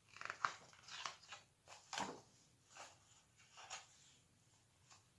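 Several faint, short rustles and soft taps of paper as a picture book's pages are handled and turned.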